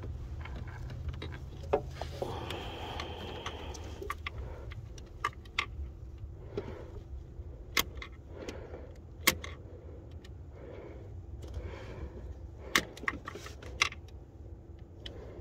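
Hand tools clinking against metal: scattered sharp clicks and knocks from a wrench and Torx bit working on a bracket's screws, some close together, over a steady low hum.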